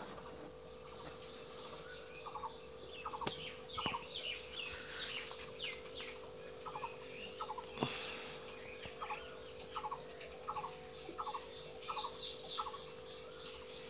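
Birds calling: a run of short, quickly repeated calls roughly every second, with higher falling chirps over them, against a steady hum. A few sharp knocks, the loudest about eight seconds in.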